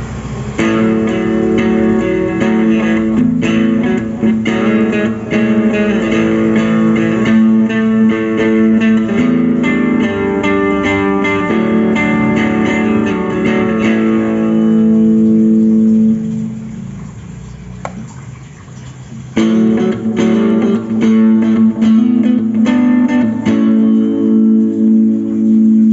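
Schecter Banshee-6 FR SGR electric guitar being played: a continuous phrase of sustained notes for about fifteen seconds, the last notes ringing out and fading, then a second phrase starting about nineteen seconds in.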